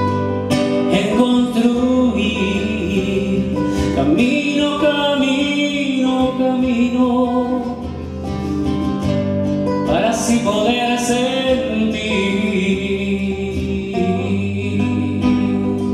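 Two acoustic guitars played together, with a man singing over them.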